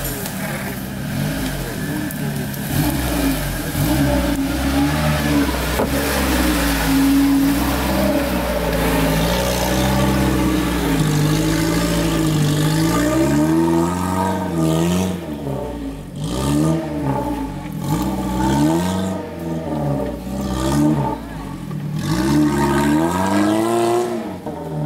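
UAZ off-road SUV's engine revving hard as it churns through deep mud. Its pitch climbs and falls, with longer held revs at first, then the throttle is worked up and down about once a second in the second half.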